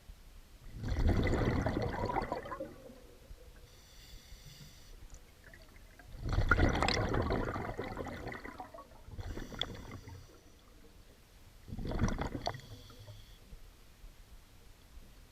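Scuba diver breathing through a regulator underwater: three loud bubbling rushes of exhaled air, with a faint hiss of inhalation between them.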